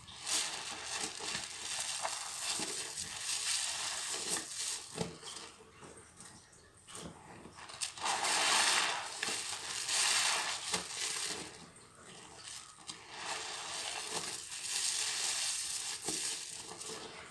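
Hands squeezing soap-soaked sponges in thick suds, in long noisy squeezes of the foam. Two louder squeezes come about halfway through.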